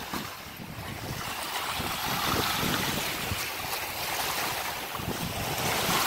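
Small waves washing in on a sandy shore, swelling about two seconds in and then easing off, with wind buffeting the microphone.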